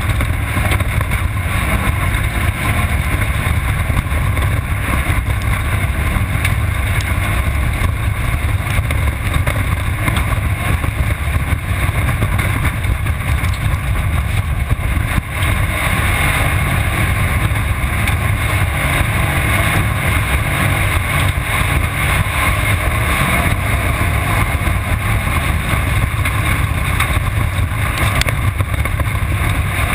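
Off-road race car at speed, heard through its on-board camera: a loud, steady rush of engine, wind and terrain noise, with a brief dip about halfway through.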